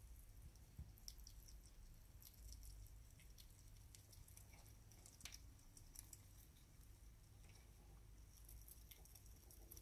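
Faint, scattered small clicks and crunches of a sugar glider chewing mealworms taken from a plastic tub, over a quiet room hum.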